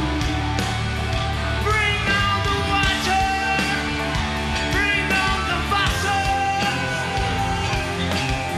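Live hard rock band playing with distorted electric guitar, bass and drums. A male lead vocal comes in about two seconds in with several held, bending notes and drops out around six and a half seconds in, while the band plays on.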